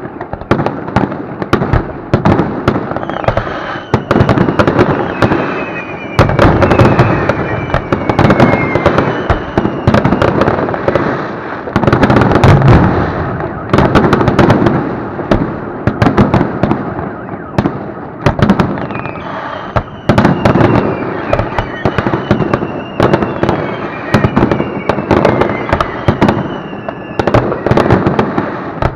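Fireworks display: a continuous barrage of shells bursting, with bangs and dense crackling. Slowly falling whistles sound over it a few seconds in and again after about twenty seconds.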